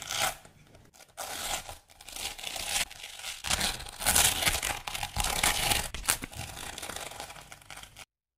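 Masking tape being peeled off a sheet of painted paper: a series of rasping rips in several pulls, loudest about four seconds in.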